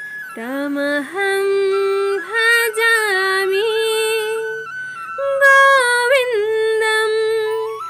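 A woman singing a devotional song solo, in long held notes with a wavering vibrato and slides between pitches.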